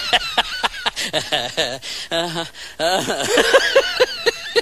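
A man laughing hard in quick, broken bursts, several a second.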